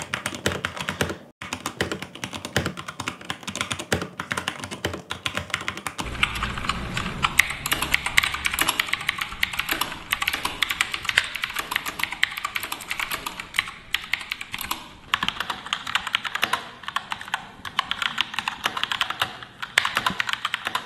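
Mechanical keyboard with Gateron switches being typed on in rapid, continuous keystrokes as a demonstration of the switch sound. About six seconds in the recording changes abruptly, and the typing after that is denser and brighter.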